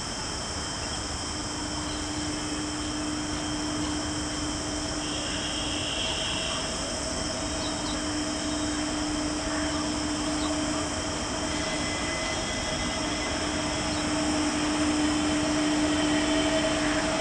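Indian Railways WAG-9 electric locomotive approaching: a steady hum with a constant low tone, growing gradually louder.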